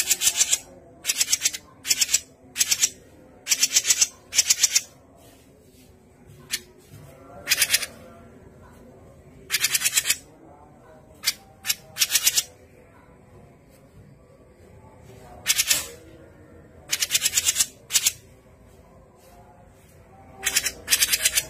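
Cucak jenggot giving short, harsh rattling chatter calls, each burst under a second long, repeated irregularly with pauses of up to three seconds.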